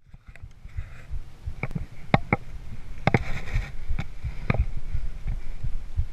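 A 2013 Haro Flightline Sport hardtail mountain bike rattling over a dirt trail, picked up by a chest-mounted GoPro Hero 3: a low rumble with irregular sharp knocks and clacks from the bike and camera mount.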